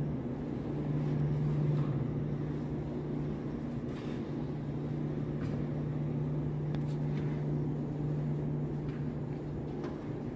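Steady low hum of commercial laundromat dryers running, with faint rustles and clicks of dry clothes being pulled from a dryer drum into a cart.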